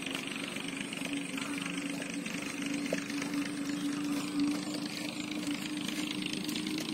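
A motor running steadily at constant speed, giving an even hum that holds one pitch throughout, with a high hiss above it.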